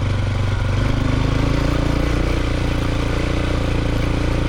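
AKT TT DS 200 motorcycle's single-cylinder engine running steadily under way, its pitch rising slightly about a second in.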